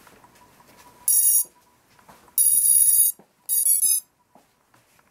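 Electronic beeps from a ZMR250 mini quadcopter just powered up on its battery: its power-up tones. There is a short high beep about a second in, a longer one, then a quick run of changing tones near the end.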